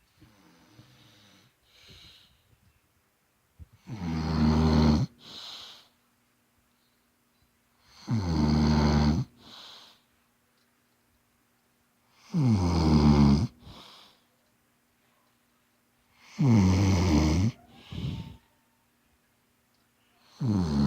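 An elderly man snoring in his sleep: a loud, pitched snore about every four seconds, five in all, each followed by a short, softer breath. The first two seconds hold only faint breathing.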